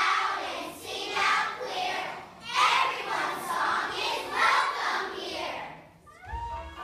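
A large group of children's voices in unison, in phrases about a second long. Near the end, accompanying music starts.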